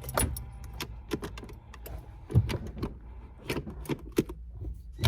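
Irregular clicks, taps and light rattles of small hand work on the shifter's trim screws, over the steady low hum of the car's engine idling.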